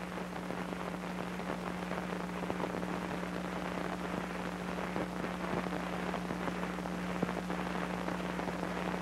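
Dense crackle and small pops over a steady low hum: the surface noise of an old film's soundtrack running on with no music or narration.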